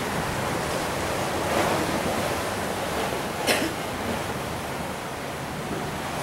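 Steady rushing noise of wind and surf on a blustery seafront, with a short sharp noise about three and a half seconds in.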